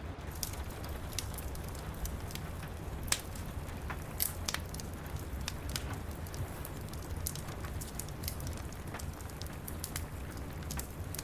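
Steady rain pattering, mixed with a wood fire in a fireplace crackling: scattered sharp pops over an even low rush. The loudest pops come a little after three seconds and just past four.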